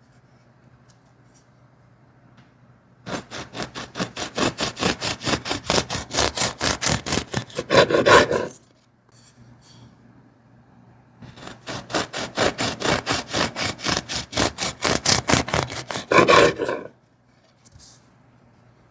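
Serrated bread knife sawing through a crusty loaf: two slices, each a run of quick back-and-forth strokes, about five a second, that grows loudest at the end as the blade cuts through.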